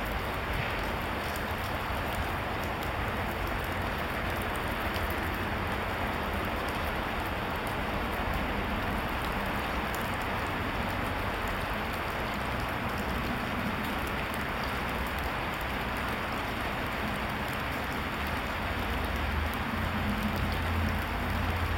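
Steady, even hiss with no distinct events, and a low rumble that swells slightly near the end. No sound of the bow or arrow is heard during the silent draw.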